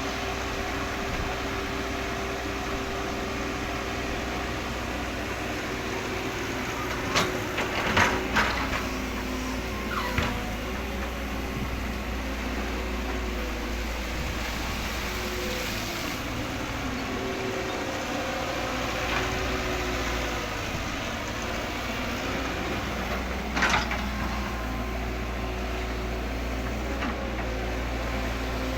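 Electric motors of a radio-controlled excavator running steadily, a whine that steps up and down in pitch as the machine works. There are a few sharp clacks about a quarter of the way in and again about four fifths of the way through.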